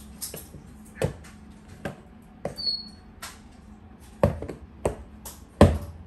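Quad roller skates clacking down on a hardwood floor as the skater steps through a footwork drill, about eight separate knocks a little under a second apart, the loudest near the end. A brief high peep sounds about midway.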